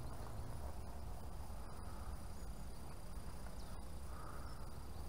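Quiet outdoor background noise: a low rumble under a faint steady high-pitched whine.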